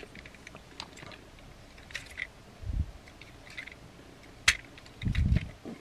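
Small plastic clicks and snaps of a Transformers Legacy United Animated Optimus Prime figure's pegs and joints as its parts are unpegged, rotated and folded by hand, with a few dull low thumps of handling. The sharpest click comes about four and a half seconds in.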